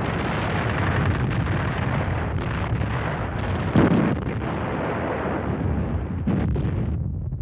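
Artillery fire and shell bursts: a continuous low rumble of gunfire with one sharper, louder blast about four seconds in.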